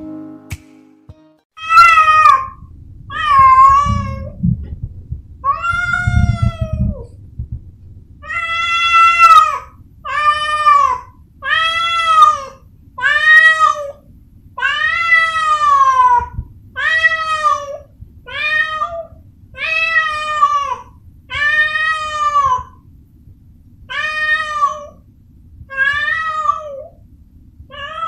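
A domestic cat meowing over and over, about eighteen loud calls spaced roughly a second apart, each rising and then falling in pitch.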